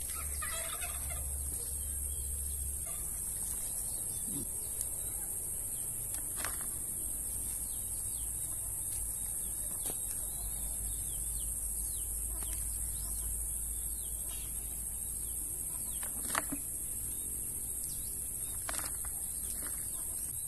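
Steady high-pitched drone of insects, with a few brief sharp sounds standing out above it.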